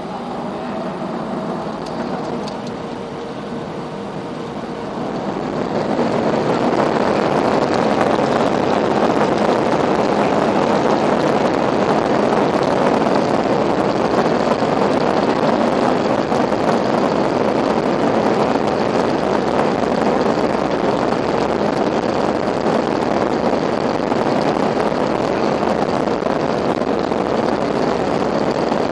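Airbus A320 heard from the cabin at takeoff: the engines hum at low power, then about five seconds in spool up to takeoff thrust. A loud, steady roar then holds as the airliner accelerates.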